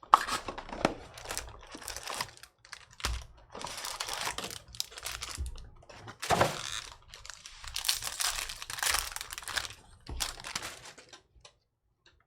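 Card-pack wrappers and packaging being torn open and crinkled in a string of irregular bursts, easing off near the end.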